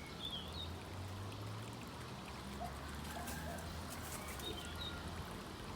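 Water trickling steadily out through a garden pond's overflow drain, with a few faint bird chirps.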